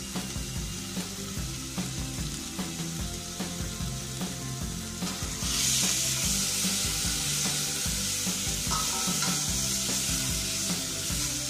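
Onion-garlic and ginger paste sizzling in hot oil in a stainless steel pot while being stirred with a slotted spatula. The sizzle grows louder about halfway through.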